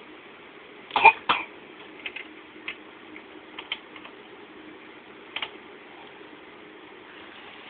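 A young child coughing twice in quick succession about a second in, followed by a few fainter clicks, over a faint steady hum. The parent wonders whether the cough is whooping cough.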